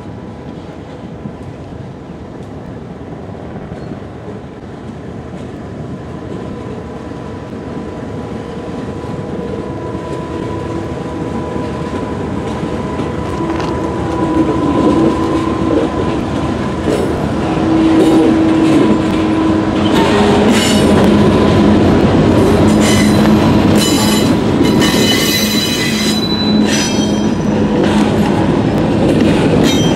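GE Dash 8-40CW (C40-8W) diesel locomotive approaching and passing, growing steadily louder, then double-stack container cars rolling by. In the second half, high-pitched wheel squeal comes and goes over the loud rumble of the cars.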